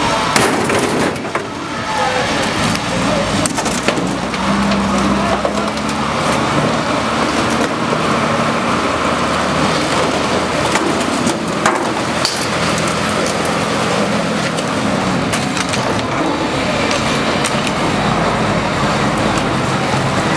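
Police armoured car's engine running steadily as it drives slowly, its front clearing blade pushing through barricade debris with scattered clatter and knocks. Crowd voices murmur behind.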